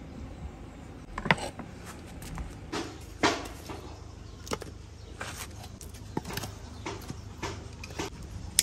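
Firewood being laid on a stone hearth: irregular wooden knocks and scrapes, about half a dozen, the loudest a little past a third of the way in and a sharp one at the very end.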